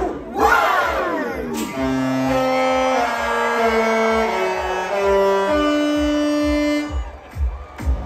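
The Disney Wish's ship horn sounding a short melody of long held notes, several pitches at once like a chord, stepping from note to note and stopping about a second before the end. Voices shout in the first second or so, before the horn starts.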